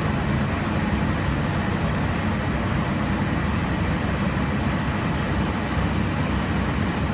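Steady rushing noise inside an airliner in cruise flight: airflow and engine noise, heaviest in the low range.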